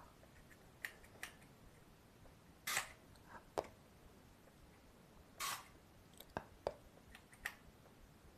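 Two short hissing spritzes from a plastic pump spray bottle, a few seconds apart, with scattered sharp clicks and taps around them.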